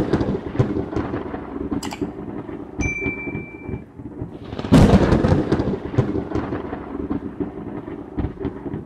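Rain falling with rumbles of thunder, the loudest rolls just at the start and about five seconds in.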